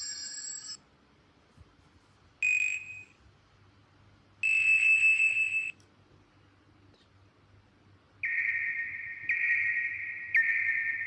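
Nokia N8-00 ringtones and alert tones playing one after another: a tone cutting off just after the start, a short beep, a steady beep about a second and a half long, then from about eight seconds a run of repeating electronic tones, each about a second long, stepping slightly up and down in pitch.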